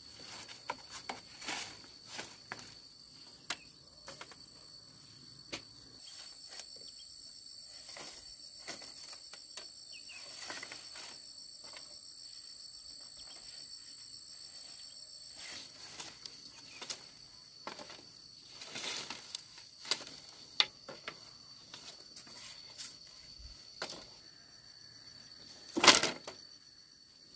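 Dry bamboo poles knocking and clattering as an old bamboo fence is pulled apart and the poles are handled, with one much louder knock near the end. Behind it, insects drone steadily at a high pitch.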